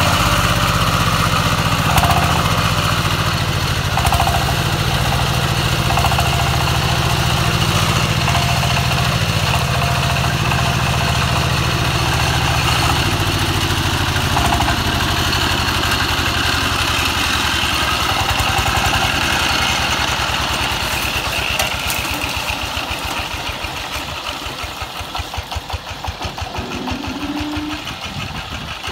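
Single-cylinder diesel engine of a công nông two-wheel tractor chugging steadily while it pulls a trailer loaded with logs. In the last several seconds it grows quieter as the tractor drives past, and the separate firing beats stand out.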